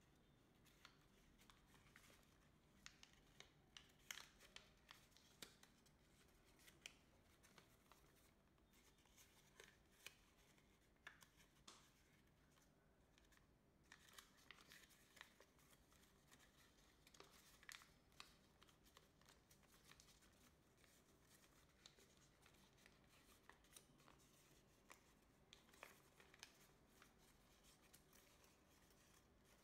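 Faint crackling and rustling of origami paper being folded and creased by hand, a scatter of small crisp ticks over a low hiss.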